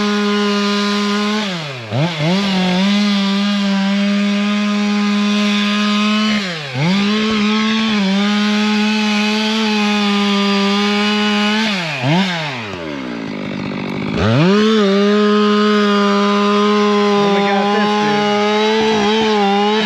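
Two-stroke chainsaw running at full throttle with a steady high whine. The revs drop and snap straight back up about 2 and 7 seconds in, then fall to a brief idle about 12 seconds in before it revs up again.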